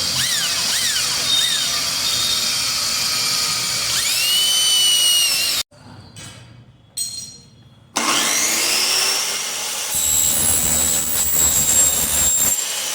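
Electric power tool motor whining under use, its pitch swinging down and up. About six seconds in it cuts off suddenly, then after a couple of seconds it starts again with a rising whine and runs on.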